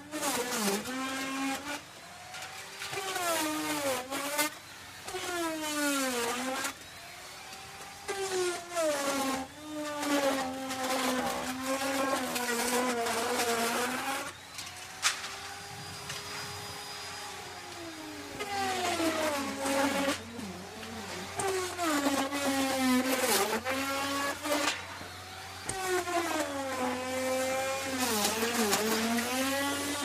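Electric power saw cutting wood, its motor pitch sagging again and again as the blade bites and rising back as it frees up, with quieter spells of lighter running between cuts. A sharp click about halfway through.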